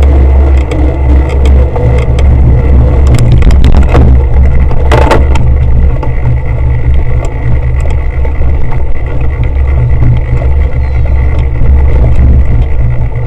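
Loud, steady low rumble of wind and vibration on an action camera riding with a cyclocross bike, with rattling clicks as the bike jolts over pavement and grass. A short, louder rush of noise comes about five seconds in.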